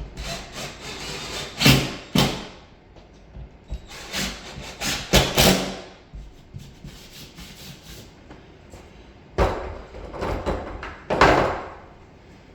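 Scraping and rubbing strokes on drywall, in three groups of a few strokes each, as the raised paper around a repair is scraped away so the tape will lie flat without a hump.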